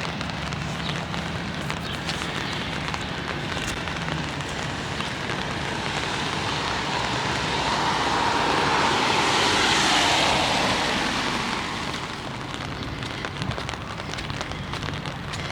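Rain pattering steadily on an umbrella, with a vehicle passing on the wet road: its tyre hiss swells to a peak about two-thirds of the way through, then fades.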